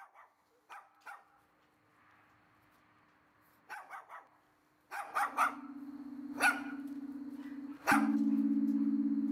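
A dog barking in short, irregular barks, about ten in all, over a low sustained musical drone that grows louder about halfway through and again near the end.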